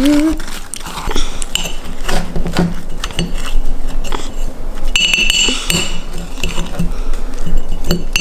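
A spoon scraping and clinking repeatedly in a cup of ice cream and crushed Oreos, with a brief ringing clink about five seconds in.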